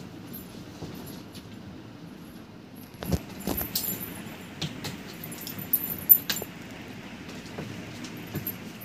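Kittens tussling and scampering on a concrete floor: scuffs and a few knocks, with several short bursts of light metallic jingling, mostly in the middle and again near the end.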